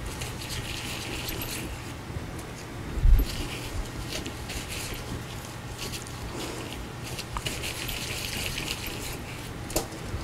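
Soft crinkly rustling of plastic gloves and cookie dough being rolled into balls by hand, with a dull thump about three seconds in and a light tap near the end, over a steady low hum.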